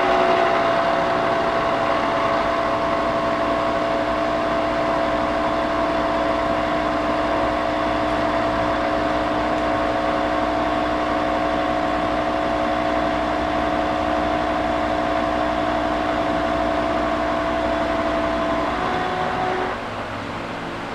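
Vertical milling machine taking a roughing cut with a 13/16-inch hog mill (coarse roughing end mill) across the end of a hot-rolled steel flat bar, with mist coolant spraying. It gives a steady, even cutting drone with a hiss that starts abruptly and stops shortly before the end.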